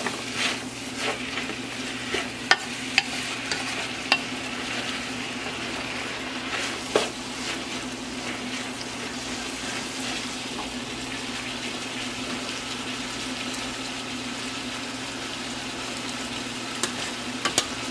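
Sliced peppers, broccoli and onions sizzling in a large aluminium pot as a wooden spatula stirs them, with scattered knocks and scrapes of the spatula against the pot, most of them in the first half. A steady low hum runs underneath the sizzle.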